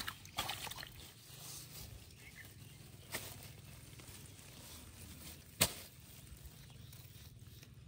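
Hands rustling through leafy plants while gripping a freshly caught fish, with a few sharp clicks, the loudest about five and a half seconds in.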